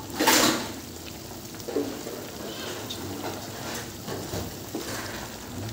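Wooden spatula stirring boiled potato and cabbage in an aluminium wok. There is one loud scrape in the first half-second, then softer scrapes and swishes every second or so.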